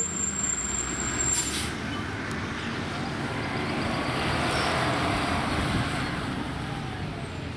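Pierce fire engine pulling away and turning through an intersection: a steady diesel engine rumble with tyre and road noise. A thin high steady tone fades out about a second in.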